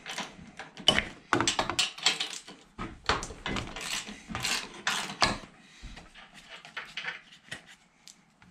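A 3/8-inch ratchet with a 19 mm socket clicking and knocking as nuts are backed off threaded studs on the tractor frame. The clicks come thick for about five seconds, then thin out and grow fainter.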